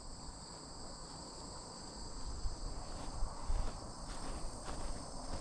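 Crickets and other insects chirring steadily in a high, continuous drone. Soft low thuds and rumble come in from about two seconds in.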